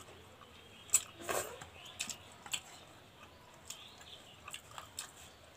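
Quiet eating by hand: chewing, with scattered short sharp clicks and smacks of mouths, fingers and food on plates.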